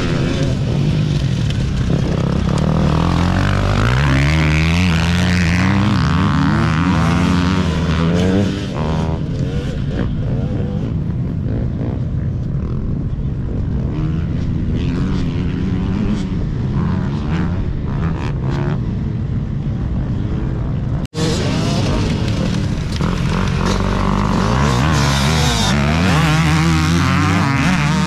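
Dirt bike engines revving up and down hard as enduro riders pass on a woods trail, the pitch climbing and falling with each throttle change. The sound breaks off for an instant about 21 seconds in and picks up again with another bike.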